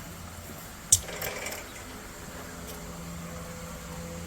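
Steady mechanical hum of a running machine, with a single sharp click about a second in and a brief rustle just after.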